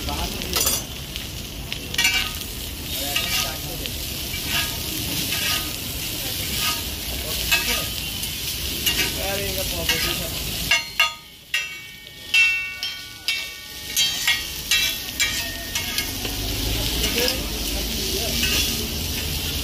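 Chowmein noodles and vegetables sizzling on a large flat griddle while two metal spatulas scrape and strike against it, tossing and chopping the noodles. Around the middle the sizzle dips and the spatulas clatter rapidly on the griddle with a ringing clang.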